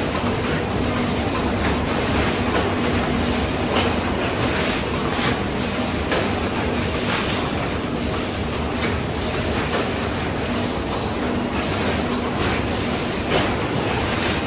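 Cornetto ice cream cone filling and packing line running: a steady mechanical din from the conveyors and machinery, with irregular clattering clicks and a low hum that comes and goes.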